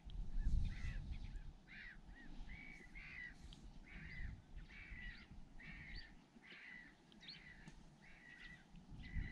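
A bird calling over and over in short, harsh calls, about two a second, over a low rumble of wind on the microphone.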